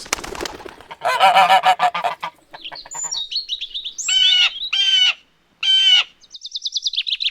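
A montage of wild bird calls. Chattering and chirps come first, then three loud honking calls less than a second apart, and a rapid high trill of repeated notes near the end.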